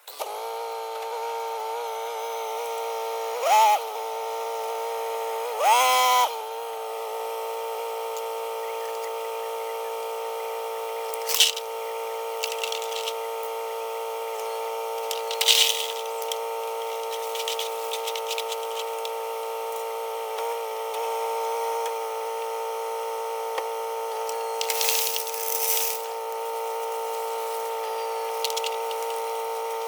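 Steady high whine of a truck dump insert's electric-hydraulic pump, its pitch dipping and louder briefly twice in the first seconds, with a few short scrapes and clatters of crushed stone.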